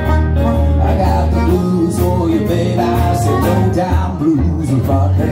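Live blues with electric and acoustic guitars, and a harmonica played into a microphone over them.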